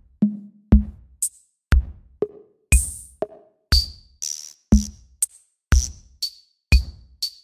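Electronic music soundtrack with a sparse drum-machine beat: a deep kick about once a second, with short percussive hits and brief electronic blips between, about two hits a second.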